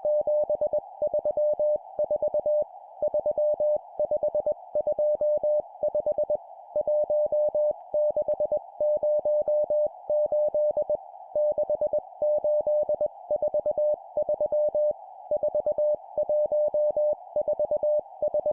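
Morse code (CW) practice tone at 20 words per minute: a single steady mid-pitched beep keyed into dots and dashes, sending groups of four numbers with short pauses between groups, over a soft continuous band of hiss.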